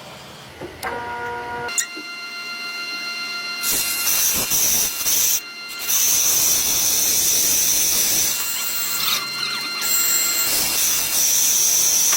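Background music with sustained tones, and from about four seconds in a loud steady hiss laid over it, broken briefly twice.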